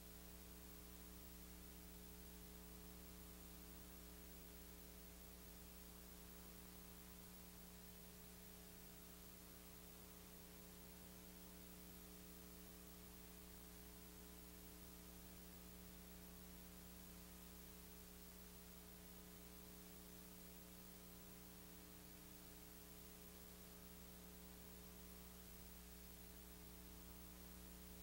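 Near silence: a faint steady electrical hum with a low hiss underneath, unchanging throughout.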